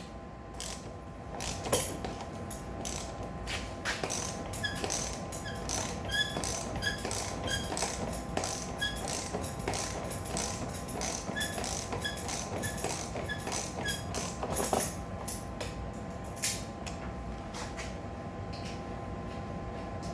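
Wrenches tightening a wheel's axle nut: scattered metal clicks and clinks, with a short ratcheting click repeated about once a second through the middle.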